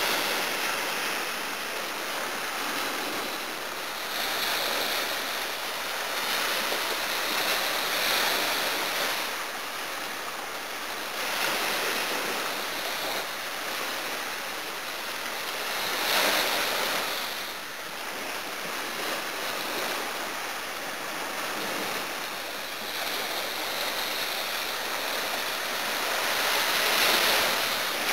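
Small sea waves breaking on the beach: a steady hiss of surf that swells every few seconds as each wave comes in.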